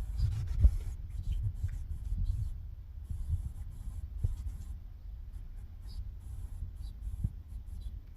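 Cats eating dry cat treats, faint crunching and small clicks, over a low rubbing rumble. There is a thump about half a second in.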